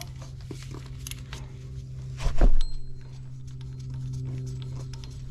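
Small metallic clicks and clinks of parts being handled in a diaphragm pump's opened head, with one loud thump a little over two seconds in. A steady low machine hum runs underneath.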